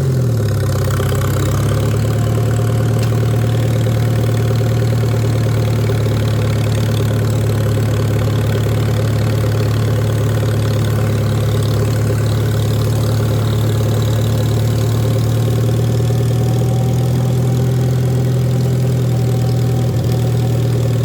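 Farmall A tractor's four-cylinder gasoline engine running steadily while mowing. Its pitch eases down a little in the first second, then holds even.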